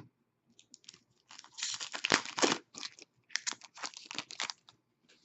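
Foil trading-card pack wrapper being torn and crinkled in the hands: a run of crackling rustles, loudest about two seconds in.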